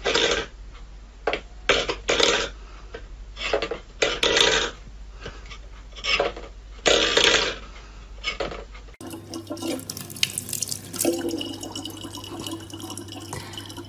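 A cat pawing a stainless steel bowl on a wooden floor, making a string of short scraping rattles. About nine seconds in, this gives way to a thin stream of tap water running steadily into a plastic bottle over a steady low hum.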